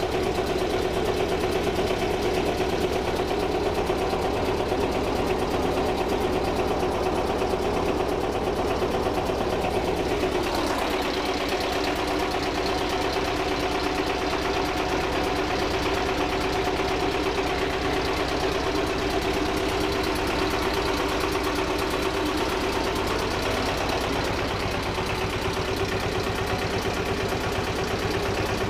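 Old two-cylinder marine diesel engine of a homemade displacement boat, running steadily with a knocking diesel beat. Its note shifts slightly about ten seconds in.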